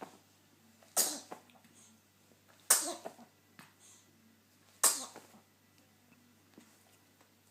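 Repeated sneezing: three sharp sneezes about two seconds apart, each with a sudden loud onset that fades within about half a second.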